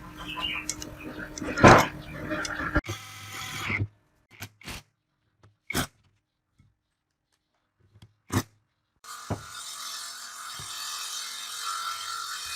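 Workshop tool work on metal parts: rustling and a loud knock, then a few separate clicks and knocks. A steady hissing, whirring tool noise starts about nine seconds in.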